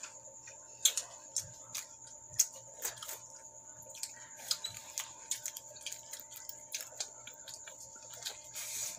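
Scattered soft clicks and smacks of a burger being handled, pulled apart and eaten, with a faint steady high-pitched tone behind.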